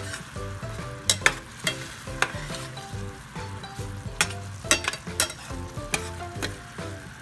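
Bacon jam sizzling in a stainless steel pot as it is stirred with a silicone spatula, with several sharp knocks and scrapes of the spatula against the pot. Light background music with short plucked notes plays underneath.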